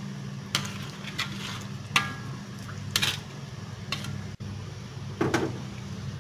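Metal ladle stirring coconut-milk fish curry in a metal wok, clinking and scraping against the pan about once a second, over a steady low hum.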